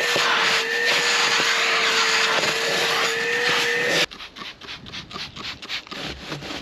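Milwaukee M18 FUEL cordless wet/dry vacuum running steadily with a steady whine, sucking debris and old sealant out of the vent opening, then cut off suddenly about four seconds in. After it stops, quick rhythmic rubbing strokes, about five a second, as the opening is wiped down with a rag.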